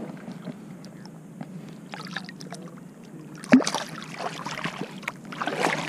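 Water splashing as a speckled trout is released by hand back into shallow bay water: a sudden loud splash about three and a half seconds in, then more splashing near the end.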